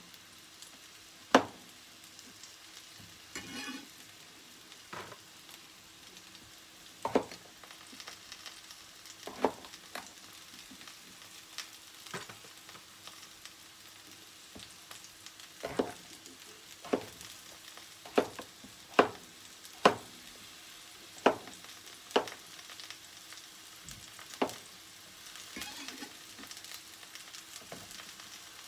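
Kitchen knife cutting king oyster mushrooms on a plastic cutting board: a dozen or so sharp knocks of the blade hitting the board, irregularly spaced, with a few softer scuffles as cut pieces are handled and dropped into a pan.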